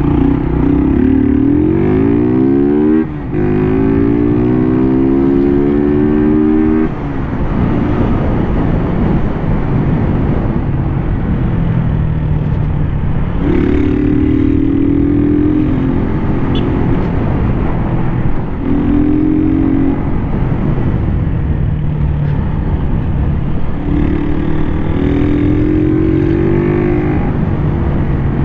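Motorcycle engine pulling through the gears, its note rising, dropping at a shift about three seconds in, then rising again. It eases off and then picks up in several more short rising runs, over steady wind and road noise.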